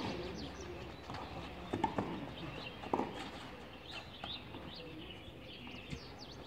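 Tennis ball struck by rackets and bouncing during a rally on a clay court: a few sharp pops, the loudest two about a second apart near the middle, with softer ones later.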